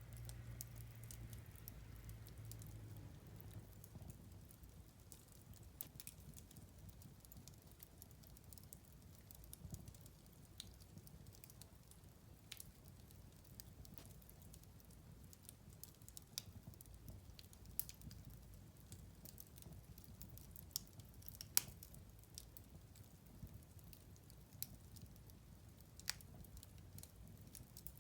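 Wood fire burning in a fireplace, crackling with scattered sharp pops and snaps over a soft low rumble of the flames; the loudest pop comes about three quarters of the way through.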